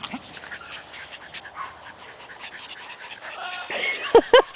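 Several small terriers panting as they scramble after a toy, a quick, rhythmic breathing sound, then three short, sharp yips in quick succession near the end.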